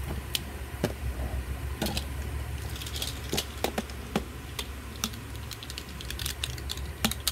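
Light clicks and taps of small hard objects being handled at irregular intervals, over a steady low hum.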